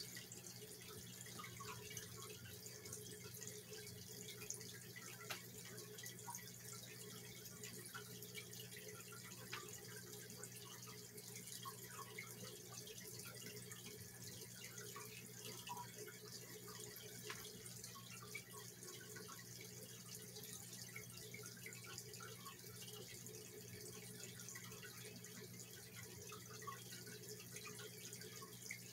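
Faint water dripping and trickling, with scattered small drips over a steady low hum.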